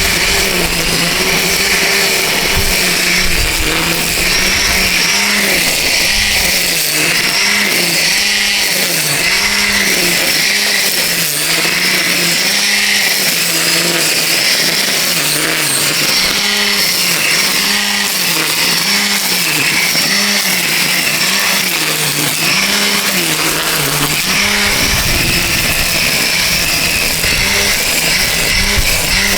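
DeWalt 20V brushless string trimmer running while cutting grass: a steady motor-and-line whine that dips and recovers in pitch about once a second as the line swings into the grass.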